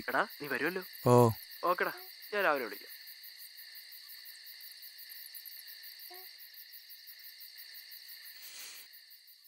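Night-time chorus of crickets: a steady, high-pitched, finely pulsing trill. A man's voice says a few short phrases over the first three seconds.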